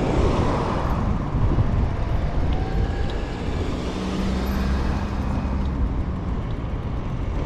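Car traffic passing on a city street, heard from a moving bicycle, with wind rumbling on the microphone. A steady hum, like an engine, comes in about four seconds in and fades out shortly after.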